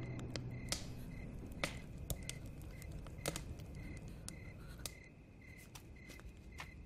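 Quiet drama ambience: a faint short chirp repeating about twice a second, with scattered sharp clicks and snaps over a low background hum.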